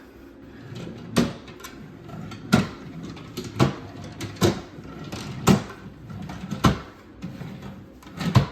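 Cabinet drawers and cupboard doors being opened and shut one after another, making about seven sharp knocks a second or so apart.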